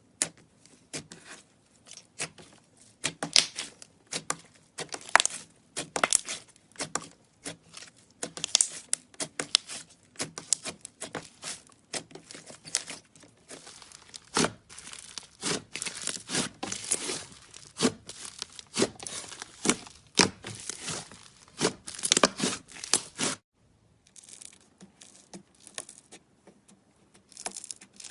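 Slime being squeezed and stretched by hand, giving dense, irregular crackling and popping. It stops abruptly about 23 seconds in and resumes more softly.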